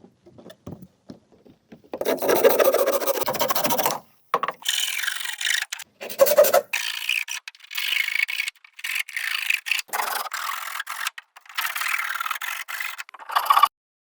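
A hand tool rasping and scraping against bamboo in a series of irregular strokes, the longest and loudest about two seconds in, broken by short pauses.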